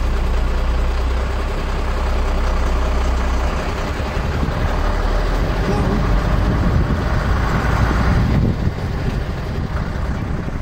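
IVECO 90-16 truck driving over a rough desert track, heard from inside the cab: a steady low engine rumble under loud road and rattle noise. The higher noise eases off about eight and a half seconds in.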